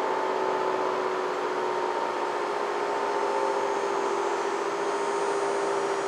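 Model 5T rotating outdoor warning siren sounding its test signal: a loud, steady chord of two tones, drifting slightly lower in pitch.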